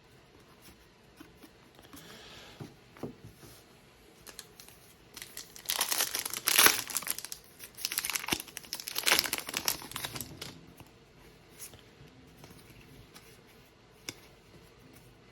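A foil trading-card pack wrapper being torn open and crinkled. Scattered small rustles come first, then dense crackling from about five to ten seconds in, then a few light clicks.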